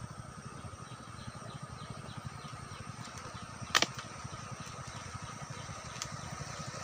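Outdoor riverbank ambience: a steady low rumble with faint rapid chirping in the first half, broken by one sharp click a little past halfway.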